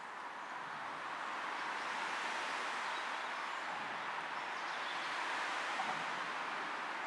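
Road traffic noise from the bridge overhead: a steady rush with no clear pitch, swelling over the first couple of seconds and then holding level.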